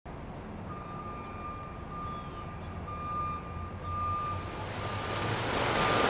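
Low rumble under a faint, steady high tone that breaks off and returns several times, with a rushing hiss that swells steadily louder toward the end.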